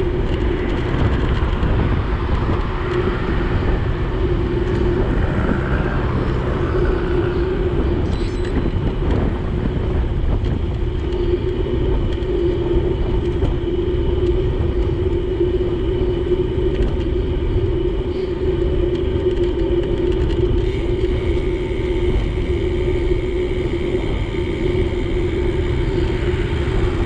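Steady low rumble of wind on the microphone and road noise from a moving bicycle, over a steady hum, with no break in the sound.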